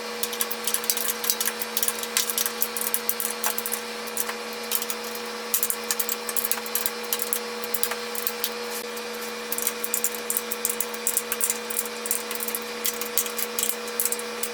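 A 7/16" wrench turning the bolts that fasten a planer to a cart: many short, irregular metal clicks and clinks. A shop air conditioner keeps up a steady hum beneath.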